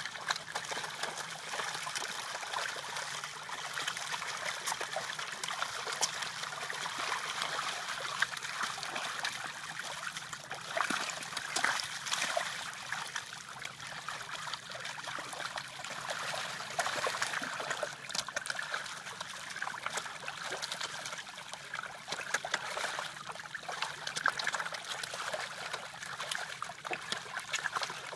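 Water trickling and splashing, a continuous run of small irregular splashes.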